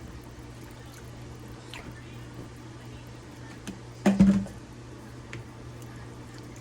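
Faint wet squishing and small clicks of ceviche being handled in a bowl over a steady low hum, with one short loud sound about four seconds in.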